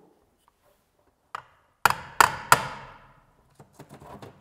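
Hammer tapping a steel anchor rod to drive a fischer injection mesh sleeve into a drilled hole in perforated brick: one light knock, then three sharp strikes about a third of a second apart, each ringing briefly, and a few faint knocks near the end.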